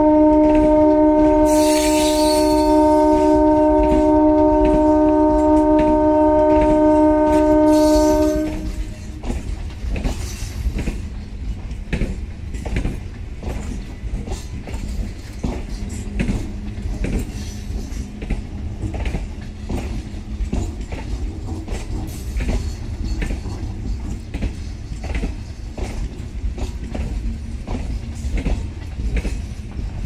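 MMTS electric multiple unit's horn sounding one long, continuous multi-tone chord, cutting off about eight seconds in. The train then pulls away, with a steady rumble and wheels clicking over the rail joints.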